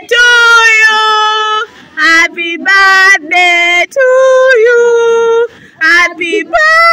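A solo singing voice holding long, loud notes, each lasting up to a second and a half, with short breaks between them.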